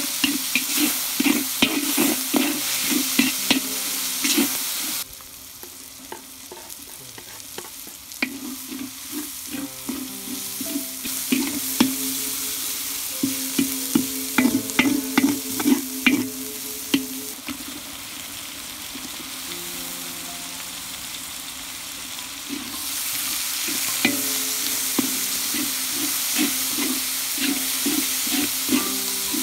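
Food frying and sizzling in a cooking pot while a spoon stirs and scrapes it, with frequent clicks of the spoon against the pot. The sizzle cuts off abruptly about five seconds in, leaving quieter stirring and scraping, and comes back a few seconds before the end.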